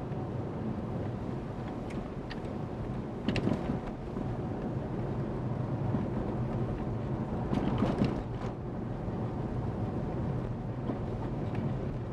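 Car cabin noise while driving: a steady low engine and road hum, with a few short knocks or clicks, the strongest about three and a half and eight seconds in.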